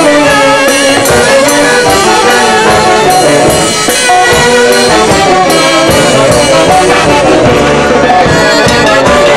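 Saxophone-led band with brass horns playing a melody together, the held notes wavering in pitch.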